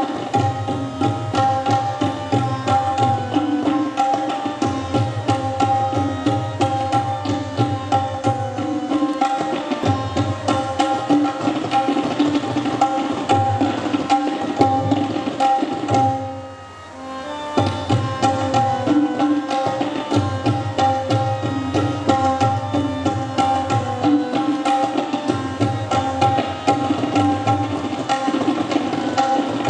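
Tabla played in a fast, continuous stream of strokes: ringing pitched strokes on the small treble drum over low bass strokes on the larger drum. The playing breaks off briefly a little past halfway, then resumes.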